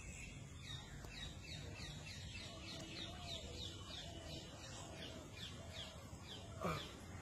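Bird calling: a run of short, falling chirps, about three a second, faint, with a few lower calls mixed in.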